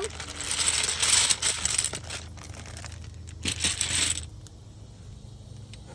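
A big bag of heavy dominoes shaken, the tiles clattering against each other. The rattle comes in two bursts: a longer one of about two seconds, then a shorter one about three and a half seconds in.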